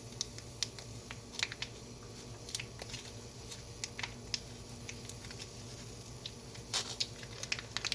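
Light, irregular clicks and taps of fingers working at a cream cheese package to get it open, a few clicks a second, over a faint low steady hum.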